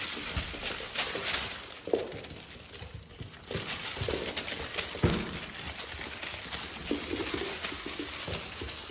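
Puppies' paws and claws pattering and skittering on a wood floor as they jump and scramble at play, a scatter of light taps and knocks throughout.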